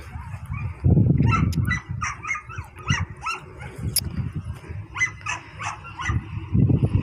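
Greyhound yelping and whining in quick, high-pitched bursts: an excited dog held back at the start of a lure run. Bursts of low rumble come about a second in and again near the end.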